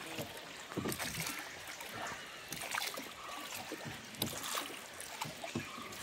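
Water splashing and lapping around a rowed boat, with irregular splashes from the oars.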